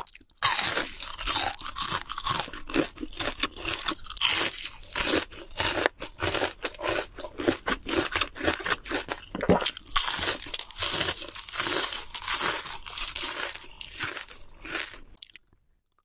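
Person biting and chewing a crispy breaded fried shrimp, with rapid crisp crunches and chewing noises. These die away about a second before the end.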